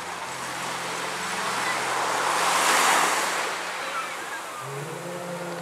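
Sea waves washing onto the shore: the surf swells to a peak about three seconds in, then recedes.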